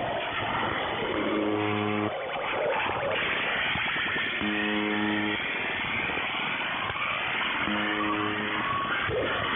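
Harsh noise music heard over a shortwave radio transmission, thin and band-limited: a dense wash of distorted noise, with a low buzzing chord that cuts in for under a second about every three seconds.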